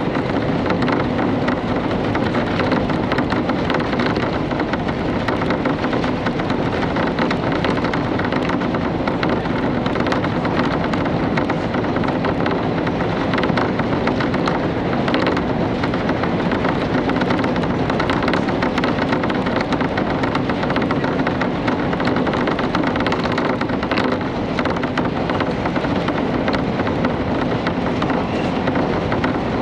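KiHa 31 diesel railcar running along the line, heard from inside the car: a steady rumble of the engine and the wheels on the rails, with a scatter of light clicks and rattles.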